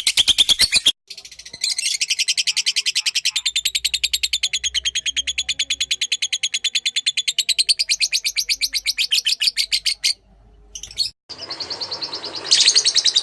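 Lovebird in full song, a long rapid chattering trill of high, sharp chirps repeated many times a second, broken by short pauses about a second in and again around ten seconds in.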